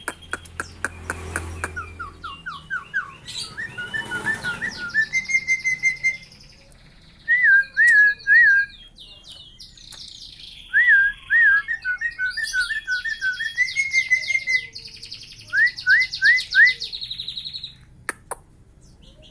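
Javan myna calling: runs of short, quickly repeated whistled notes and chirps, with brief pauses between the runs.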